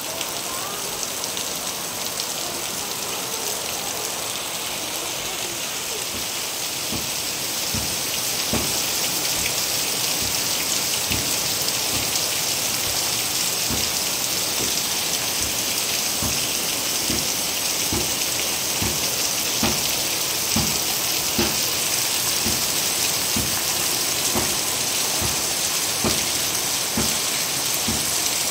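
Heavy monsoon rain pouring steadily, a dense hiss that grows a little louder about a quarter of the way in. From then on, single heavy drops thud close by, several every few seconds.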